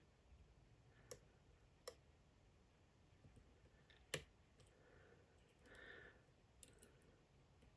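Faint, sparse clicks of a pick and tensioner working the pins of a DOM IX Saturn dimple lock, with one sharper click about four seconds in.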